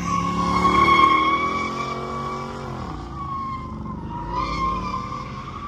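A car's tyres squealing steadily as it spins and slides, over its engine running at high revs. The revs drop away about two and a half seconds in while the squeal carries on, wavering.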